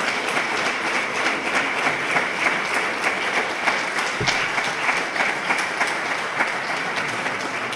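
Audience applauding, many hands clapping steadily at the close of a speech, with a single low thump about four seconds in.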